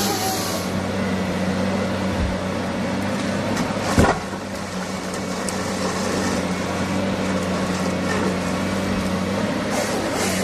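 Forestry harvester, a Komatsu PC300LC-8 carrier with a Pro700 harvester head, with its diesel engine running steadily under hydraulic load while the head fells and processes a pine stem. There is one sharp loud crack about four seconds in, and a harsh hiss near the start and again near the end.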